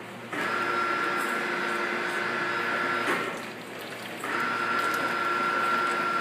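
Electric drive motor of a foundry pouring ladle running with a steady whine as the ladle tilts to pour molten metal into sand moulds. It starts abruptly, stops for about a second around three seconds in, then starts again.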